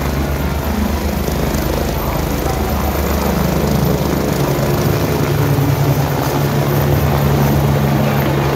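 Helicopter running close by: a steady, loud low rotor and engine sound that grows a little louder partway through.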